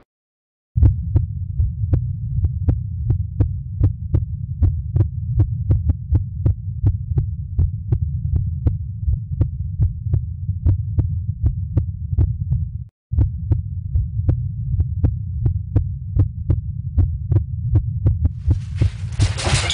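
Suspense sound effect of a low throbbing hum with a regular quick pulse, like a racing heartbeat, about three beats a second. It drops out for a moment about 13 seconds in, and a hiss swells in near the end.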